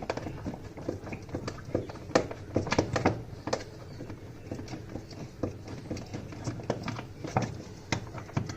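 Irregular clicks and knocks of a hand tool against metal as screws are worked loose from a washing machine gearbox mounting, coming in quick clusters with short pauses.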